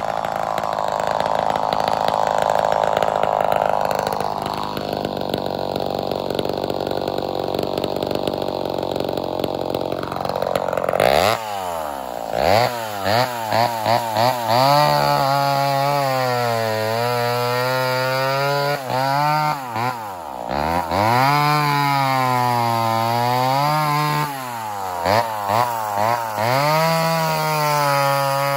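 Gas chainsaw cutting through a fallen tree trunk. For about the first ten seconds it holds a steady high-revving cut. It then revs up and down, its pitch dropping and climbing again several times, with short runs of quick throttle blips.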